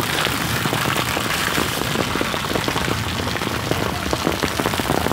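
Rain and hail falling steadily in a storm, a dense patter of many small impacts on the ground and surfaces.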